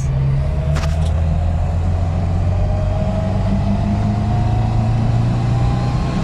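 Moskvich 412's four-cylinder engine heard from inside the cabin while driving: a steady low drone with a thin whine that rises slowly in pitch as the car gathers speed. A couple of light clicks come about a second in.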